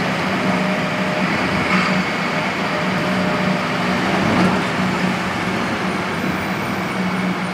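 Street traffic noise: a constant rush of vehicles with a steady low engine hum underneath.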